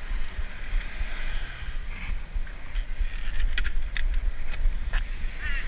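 Wind rumbling on the camera's microphone while a 1990 Peugeot Hurricane mountain bike is handled and lifted off a car's rear bike rack, with a few sharp metallic clicks and rattles about three to five seconds in. A bird starts a chattering call near the end.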